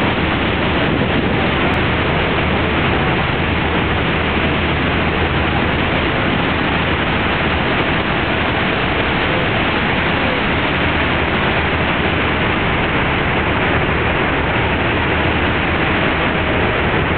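Niagara Falls roaring steadily up close: a loud, unbroken rush of falling water and spray.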